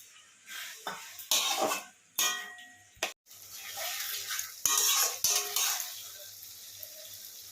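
A spatula stirring and scraping around a kadai of onions, capsicum and sauce thickened with cornflour slurry, in several loud scrapes over a faint sizzle.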